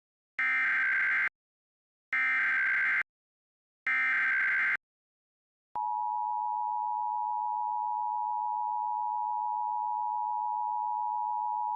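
Emergency Alert System broadcast signal: three short bursts of SAME digital header data, each just under a second, encoding a Child Abduction Emergency (Amber Alert), then after about a second's pause the steady two-tone EAS attention signal (853 and 960 Hz) starts about six seconds in and holds.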